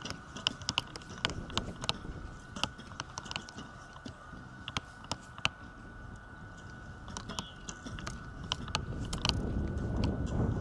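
Archery range sound: an irregular stream of sharp clicks and knocks from recurve bows being shot and arrows striking targets, over wind rumbling on the microphone that swells near the end.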